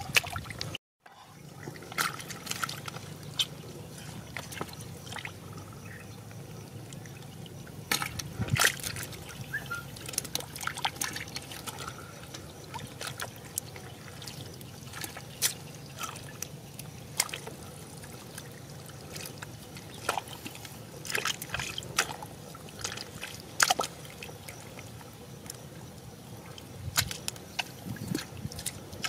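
Shallow water trickling and splashing, with many short, irregular splashes throughout.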